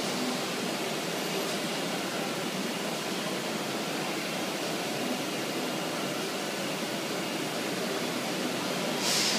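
PADE five-axis CNC router's spindle milling a wooden workpiece: a steady, noisy whir, with a brief louder hiss about nine seconds in.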